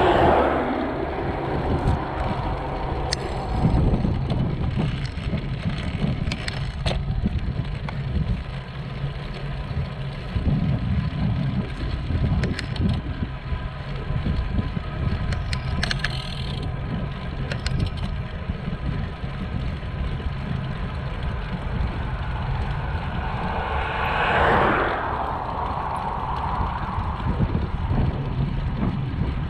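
Wind rumbling on the microphone and road noise from a bicycle being ridden, with a louder swell of noise near the end.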